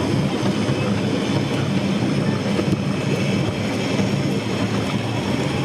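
Shipley Glen Cable Tramway car running along its rails, hauled by its cable, with a steady rumble throughout.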